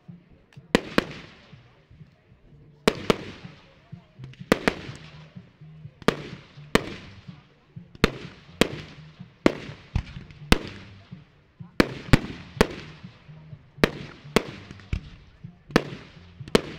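Aerial firework shells bursting in steady succession: about twenty sharp bangs, one or two a second, each trailing off in an echoing crackle.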